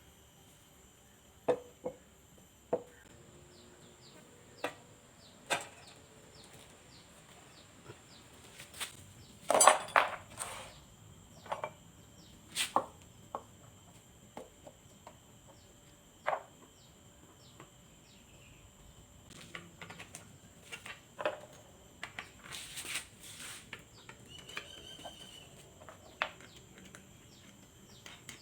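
Scattered metal clinks and knocks from tools and metal parts being handled, with a louder clatter about ten seconds in.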